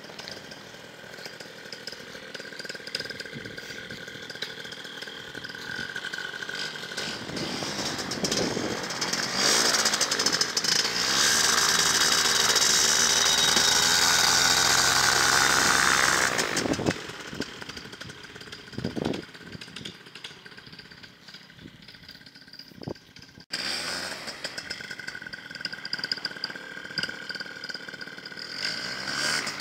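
Small engine of a homemade three-wheeled trike running as it drives past: it grows louder over the first several seconds, is loudest for about six seconds as it passes close, then fades. After an abrupt cut about three-quarters of the way through, it runs on at a moderate level.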